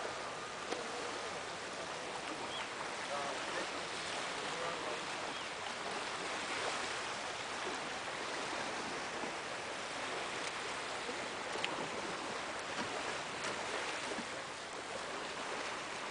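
Steady rushing outdoor noise, with a few faint knocks as driftwood poles are handled.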